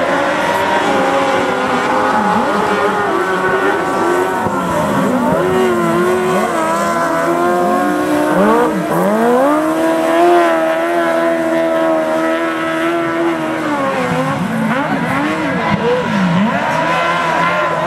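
Speedway sidecar outfits racing on a dirt oval, more than one engine heard at once. The engines rise in pitch along the straights, fall away into the turns and climb again, with one long steady high run in the middle.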